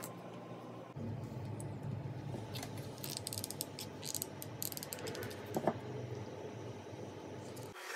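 A hot glue gun's trigger clicking in quick runs as glue is squeezed out, with wooden craft sticks being handled and set down on a wooden tabletop. A low hum lies underneath from about a second in until just before the end.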